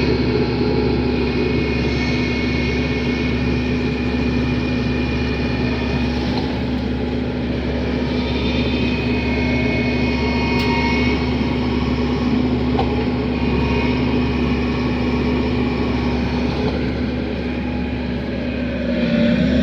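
An engine running steadily at an even speed, growing a little louder near the end.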